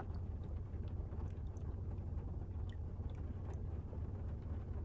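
Water being poured slowly from a bottle into a measuring cup, faint, over a steady low hum.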